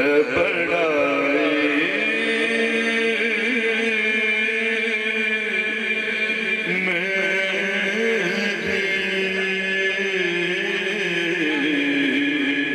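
A man chanting a naat unaccompanied into a microphone, drawing out long held notes that waver slowly in pitch.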